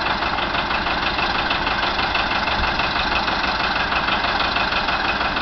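John Deere 700A industrial tractor's diesel engine idling steadily, with a fast, even pulse.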